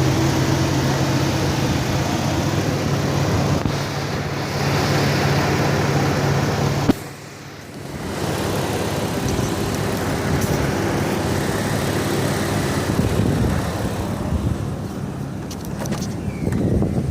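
Car engine and exhaust running steadily, a sound the owner suspects comes from an exhaust leak or a failing catalytic converter. About seven seconds in there is a click, and the sound drops away for about a second before it resumes.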